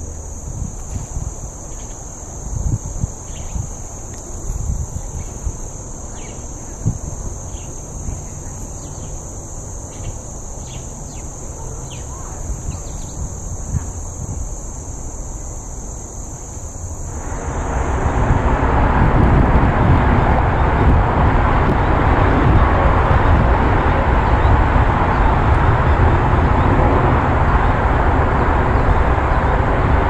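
A steady high-pitched insect drone over a low rumble. A little past halfway it cuts to a louder, steady rushing noise that fills the rest.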